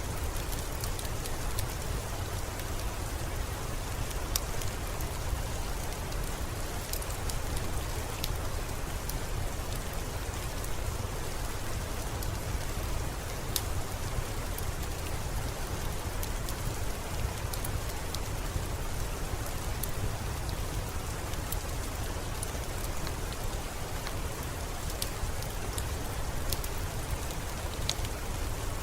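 Steady rain with a low rumble underneath, mixed with a crackling wood fire whose sharp pops and snaps come at irregular moments throughout.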